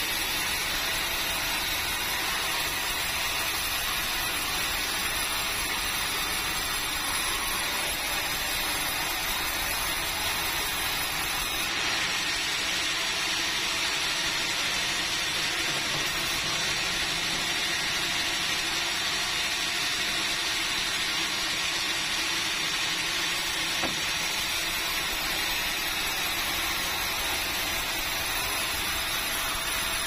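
Sawmill band saw running while hardwood timber is fed through it, a steady, even hiss of blade and machinery.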